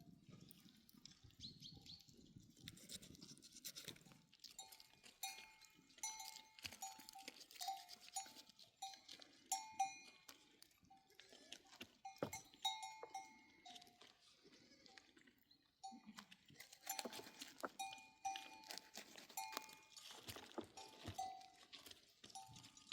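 Faint bells hung on grazing sheep and goats, clinking irregularly as the animals move, with scattered small clicks.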